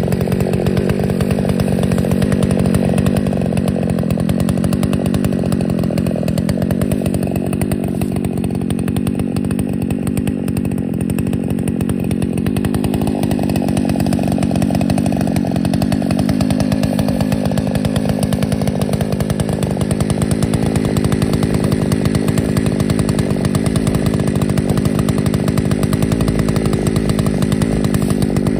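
Ported Husqvarna 288XP chainsaw running steadily at full throttle on an Alaskan chainsaw mill, ripping through a white oak log.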